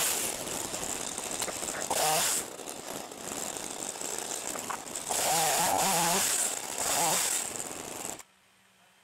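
Ryobi 38cc two-stroke gas chainsaw (RY3818VNM) revving up in bursts as it cuts through branches, falling back to a lower run between cuts. The engine stops abruptly about eight seconds in.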